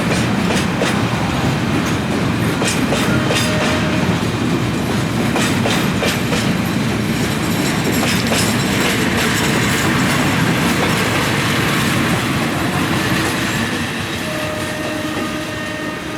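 Freight train moving along the track, its wagon wheels clacking over the rail joints with a steady running noise. The sound dies down toward the end.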